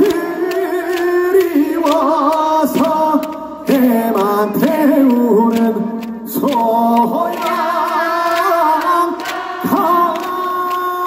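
A male singer singing unaccompanied through a microphone and PA, holding long notes with vibrato between short breaths.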